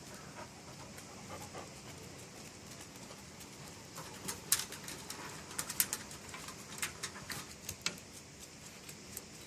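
A dog panting, with a run of sharp clicks and taps about halfway through.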